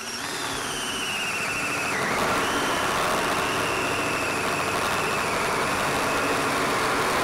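Half-inch electric drill spinning a hole saw through 1.5-inch steel tubing in a tubing notcher, cutting an oiled 45-degree notch. The drill's whine sinks in pitch over the first two seconds as it starts cutting, then holds steady under load.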